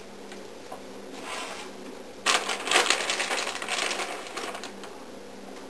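Plastic bag of shredded cheese crinkling and rustling as a hand reaches in for a handful, loudest for about two seconds in the middle, with a shorter rustle a little earlier.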